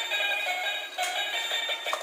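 Battery-operated toy playing a beeping electronic tune through its small built-in speaker, thin with no bass.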